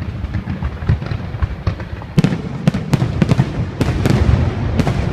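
Fireworks going off: a continuous rumble with crackling throughout, then a quick run of sharp, loud bangs starting about two seconds in.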